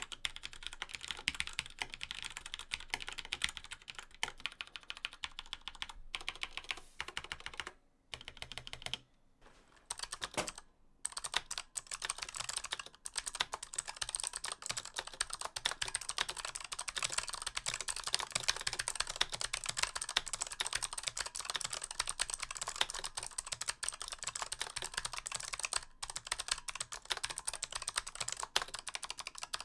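Steady fast typing on a Razer BlackWidow Chroma V2 keyboard with Razer Yellow linear switches. After a short lull about eight seconds in, typing continues on a Razer Huntsman Elite with clicky opto-mechanical switches, its key clicks brighter and denser.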